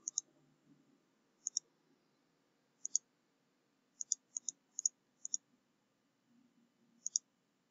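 Computer mouse button clicking about nine times at uneven intervals, each click a quick double tick as the button goes down and up, with a cluster of several between about four and five and a half seconds in. These are the clicks that work the buttons of an on-screen calculator.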